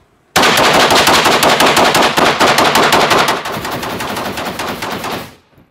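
A long string of rapid gunfire from a drum-fed firearm on an indoor range, shots following each other in quick succession for about five seconds and dropping somewhat in level after about three seconds.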